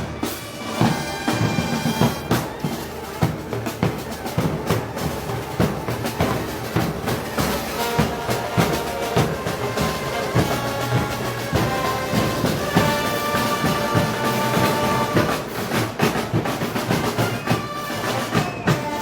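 Brass band with drums playing Moros y Cristianos festival music: steady drum strokes under held brass notes.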